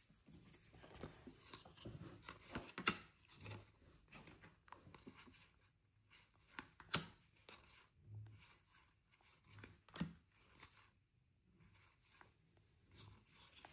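Faint handling of a fresh pack of Topps baseball cards: cards rustling and sliding against each other as they are flipped through the stack, with a few sharper clicks.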